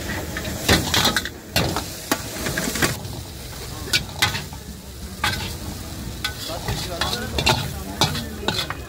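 Metal ladle and spatula scraping and clanking against a steel wok as Hakka noodles are stir-fried, with irregular sharp knocks a few times a second over a steady sizzle.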